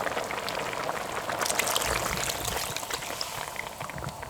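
Coconut milk being poured into a hot pan of cooking chicken, sizzling and bubbling with many small crackles, busiest around the middle.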